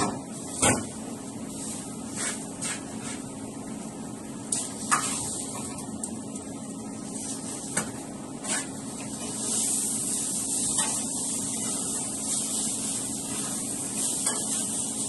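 Commercial kitchen sounds under a stainless-steel extraction hood: a steady hum and hiss, with scattered sharp clinks and knocks of pans and utensils as a cook works the fryer and grill line. The hiss swells for a couple of seconds about two-thirds of the way through.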